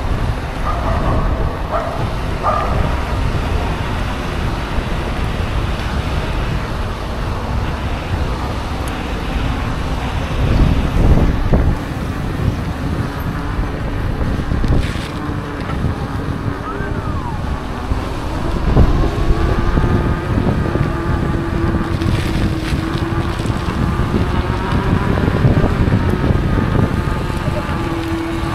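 Wind buffeting the camera microphone while riding an electric unicycle at speed, a steady rumble throughout. About two-thirds of the way in a steady pitched whine joins it and holds to the end.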